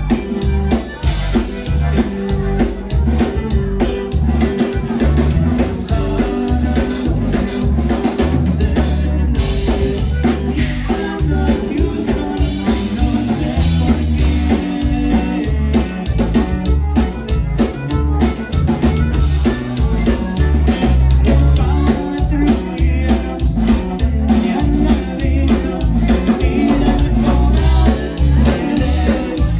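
Live conjunto band playing a steady dance tune, with a drum kit and bass driving the beat under the melody instruments.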